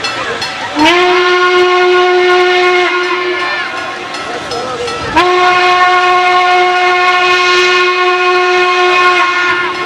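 Steam whistle of Norfolk & Western 2-6-6-4 articulated locomotive 1218 blowing two long blasts on one steady note. The first lasts about two seconds and the second about four, and each slides up in pitch as it starts. Crowd murmur fills the gap between them.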